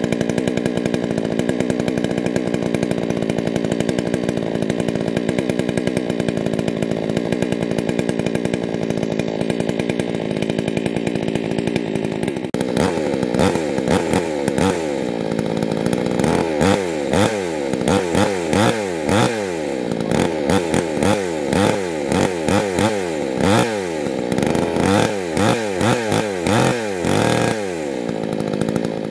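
New Oxford OXSW5800 two-stroke gasoline chainsaw running with no load while it warms up on its first start. It idles steadily for about twelve seconds, then is revved again and again in short blips, the pitch rising and falling with each squeeze of the throttle.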